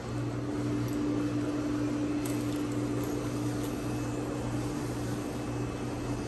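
Steady hum while the stainless-steel doors of a National elevator slide shut, meeting with a knock near the end.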